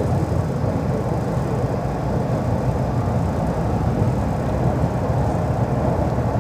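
Tram running between stops, heard from inside the passenger car: a steady rumble of wheels on rails and running gear.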